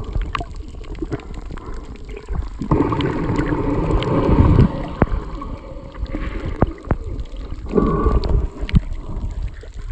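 Underwater sound through a submerged iPhone microphone: muffled rumbling and gurgling water movement with scattered sharp clicks and pops. It swells loudest from about three to four and a half seconds in, and again briefly near eight seconds.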